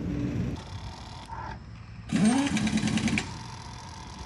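Motorcycle electric starter cranking for about a second, rising in pitch then holding, and stopping without the engine catching. The rider suspects a burnt dynamo coil that has left the battery uncharged.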